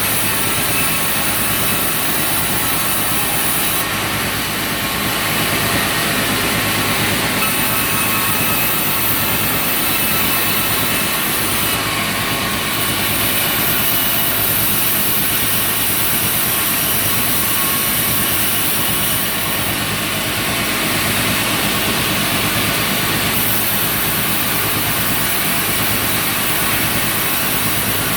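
Sawmill saw running loud and steady with its engine drive, the high hiss rising and falling every few seconds, as when cutting through wood.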